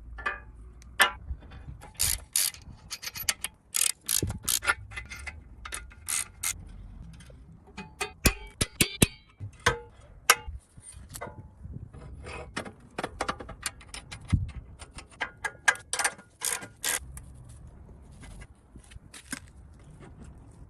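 Hand tools and metal parts clicking, tapping and clinking in irregular sharp strokes during mechanical work.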